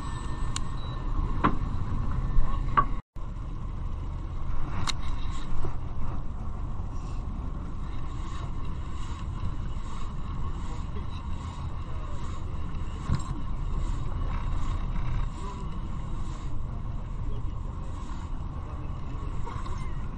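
Fishing boat's engine running steadily, with a few sharp clicks and knocks early on and faint regular ticking, a little under two a second, through the middle.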